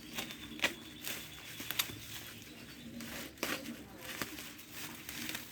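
Scattered sharp clicks and light rustling of a boxed LED light and its packaging being handled.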